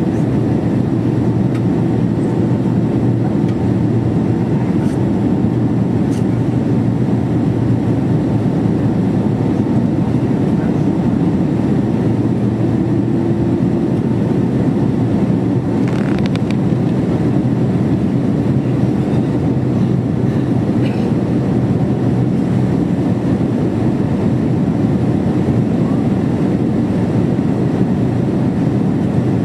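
Steady cabin noise inside a Boeing 767-300ER on approach: the engines and the airflow over the fuselage making a constant low rumble heard at a window seat over the wing.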